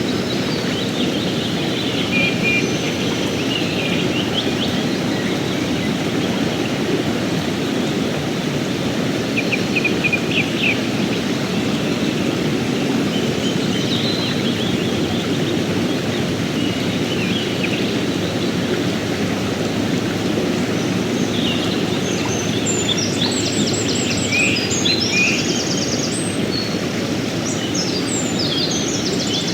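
Mountain stream flowing steadily, a continuous rush of water, with small birds chirping over it off and on. The bird calls turn busier, with quick trills, in the last quarter.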